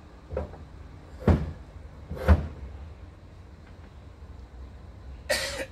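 Wooden knocks as a plank side panel is handled and knocked into place on a pickup bed: three knocks about a second apart, the second and third the loudest, then a brief harsher noise about half a second long near the end.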